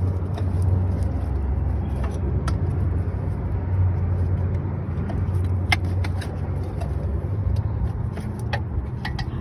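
A car engine idling steadily, with a few light clicks.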